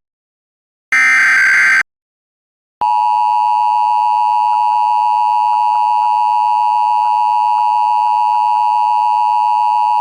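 Emergency Alert System tones: the last of the three digital SAME header bursts, a harsh data screech lasting about a second, then after a second's pause the steady two-tone EAS attention signal (853 and 960 Hz together) starts and holds.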